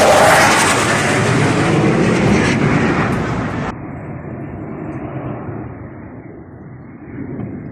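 F-35 Lightning's single afterburning turbofan roaring as the jet passes, loud and slowly fading. A little under four seconds in the sound suddenly loses its high end and drops to a quieter rumble.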